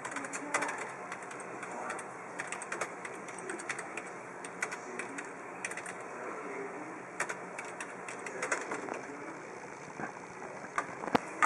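Typing on a computer keyboard: irregular bursts of key clicks, with one sharper, louder click near the end.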